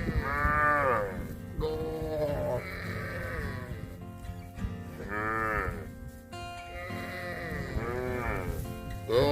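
Calf mooing: four short, high-pitched calls, each rising then falling in pitch, about a second or two apart.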